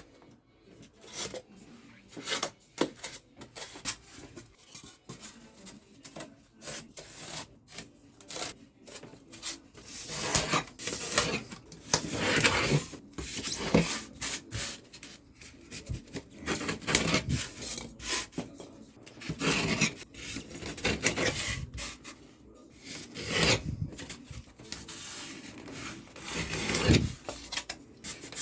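Rubbing, rasping strokes on polystyrene foam as it is shaped by hand. The strokes come in irregular runs, sparse at first and busier from about a third of the way in.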